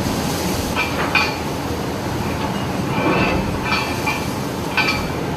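Ship in a storm at sea: a steady low rumble with several short, high-pitched squeals, such as a straining hull or fittings make.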